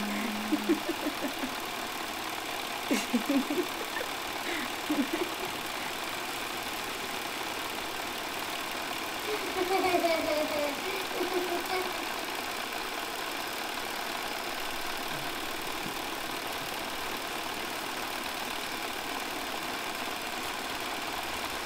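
Steady hiss with a few short, faint voice-like sounds gliding up and down in pitch, the clearest about ten seconds in.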